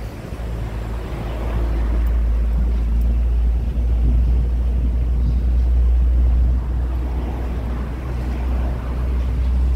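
Tourist train riding along a town street: a steady low rumble of its engine and running gear, growing louder about a second and a half in.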